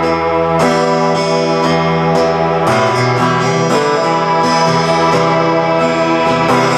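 Guitar-led instrumental music played back through a homemade low-power push-pull tube stereo amplifier, a scaled-down Dynaco ST-70 design fitted with Hammond 1608 output transformers, and loudspeakers. A steady run of plucked notes and chords, a new note every half second to a second.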